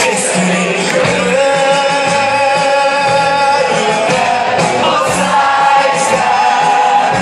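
Rock band playing live through a concert PA, with guitars, drums and upright bass, and singing with long held notes.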